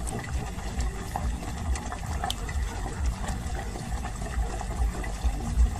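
Liquid running steadily with many small ticks in it, over a low, uneven rumble.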